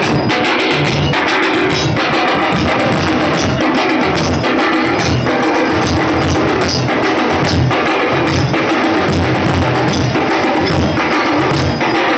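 Music with loud drumbeats in a steady rhythm.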